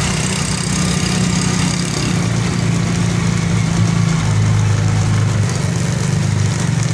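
Motor rickshaw engine running, heard from inside its passenger cabin while riding: a steady low drone whose note drops a little about four seconds in.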